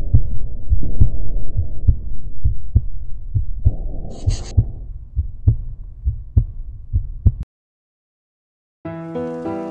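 Heartbeat sound effect: steady repeated low thumps over a muffled rumble, fading and then cutting off suddenly, with a brief hiss about four seconds in. After a short silence, piano music begins near the end.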